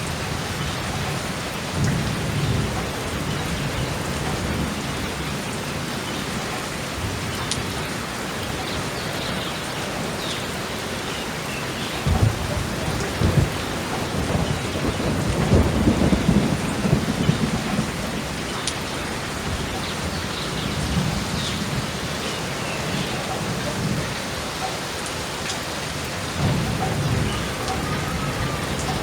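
Steady rain falling, with rolling thunder. Low rumbles come a couple of seconds in and again near the end. About halfway, two sharp cracks lead into the loudest and longest rumble.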